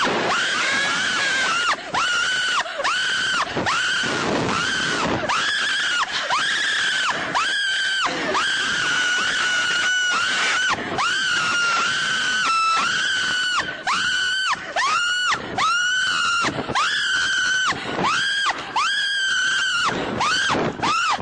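Riders on a slingshot ride screaming: high-pitched, drawn-out screams one after another, with brief breaks for breath. After the first half the screams turn shorter and choppier.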